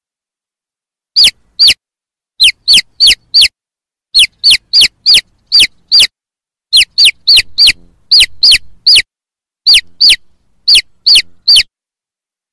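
A chick peeping: about two dozen short, high peeps, each falling sharply in pitch, in irregular runs after a second of quiet.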